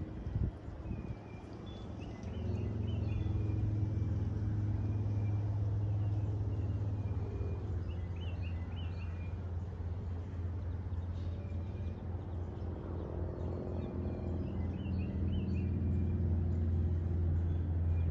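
Outdoor ambience of a steady low rumble like a vehicle engine or distant road traffic, swelling about two seconds in and holding. A small bird chirps in short bursts of notes every several seconds over it.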